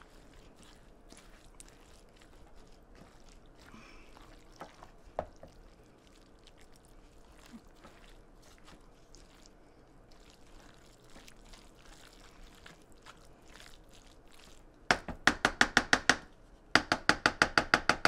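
Wooden spoon stirring chunky chili vegetables in a ceramic crock pot insert: faint scraping and soft clicks at first, then near the end two runs of loud, rapid clacking as the spoon knocks against the pot.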